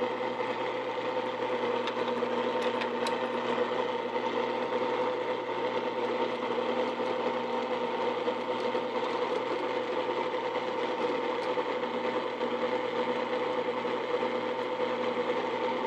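Old drill press motor running steadily with a small drill bit cutting slowly into a metal part, a constant hum with no change in pitch. The spindle speed is much too slow for such a small bit.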